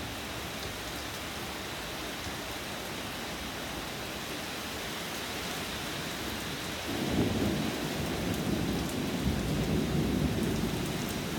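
Steady rain hissing down, with a rolling rumble of thunder that builds about seven seconds in and goes on for several seconds.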